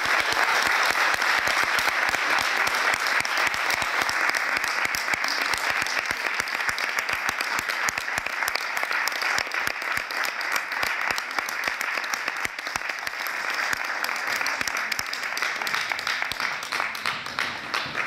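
Audience applause: many people clapping in a dense, steady stream without a break.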